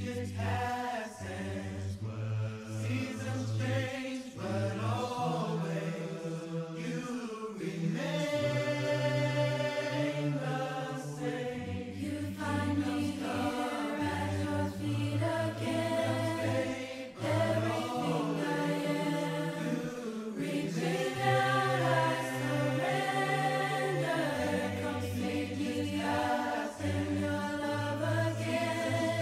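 A congregation singing a hymn a cappella in mixed voices, in several parts at once with a low bass line beneath, phrase by phrase with short breaks between lines.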